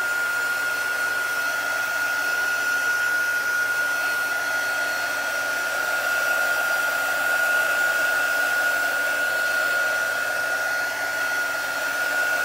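Handheld craft heat tool (a quick dry tool) running steadily, blowing hot air to dry paint. A steady rush of air carries a constant high-pitched whine.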